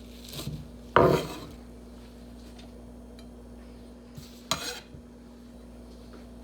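Kitchen clatter: dishes or utensils being set down, a loud ringing clank about a second in and a smaller one a few seconds later, over a steady low hum.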